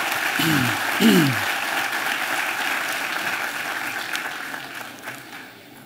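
Audience applauding, fading away gradually over about five seconds. Two brief falling cries come through near the start.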